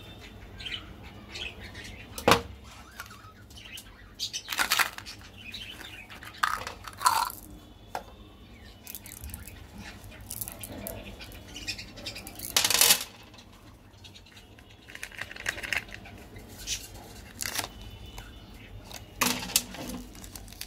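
Candy-coated chocolate buttons and small plastic candy pieces handled on a tabletop: scattered clicks, taps and short rattles. The sharpest knock comes about two seconds in, and a longer rattle comes near the middle. Faint bird chirps sound in the background.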